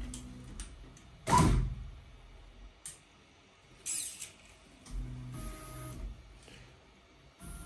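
Stepper motors of a Voron Trident 3D printer's tool changer driving the carriage in short runs, each with a steady whine. A loud clunk comes about a second and a half in. The carriage is being held back by hand, making the motors skip steps so the tool fails to dock.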